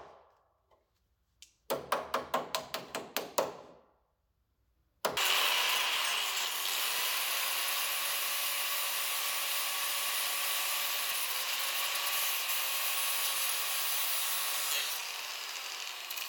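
A hammer strikes the car's sheet-steel body about eight times in quick succession, some four blows a second, each ringing briefly. After a short pause, about five seconds in, an angle grinder starts and runs steadily with its disc on the steel, easing slightly near the end.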